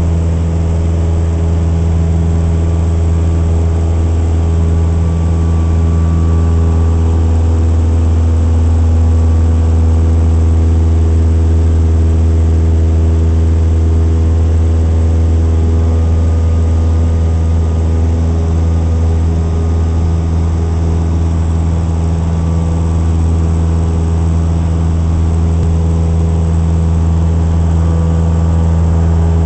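Cessna 172S Skyhawk's four-cylinder Lycoming engine and propeller running steadily at constant power in flight, heard from inside the cabin.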